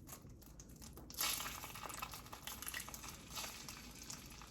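An egg cracked into a hot buttered frying pan: a sizzle starts suddenly about a second in and keeps going.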